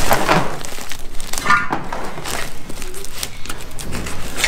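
Woven plastic wool sack rustling and crinkling as it is handled at its rim, with many small scrapes and knocks.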